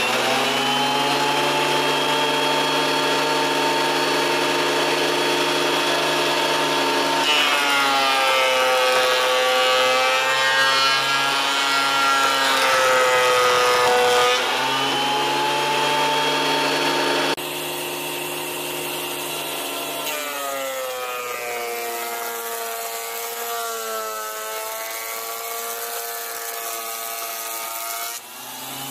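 TOTAL TTKP15001 wood thickness planer running with its newly replaced drive belt, a steady motor whine. Twice, as a board feeds through and the cutter head takes load, the pitch drops and wavers, then recovers.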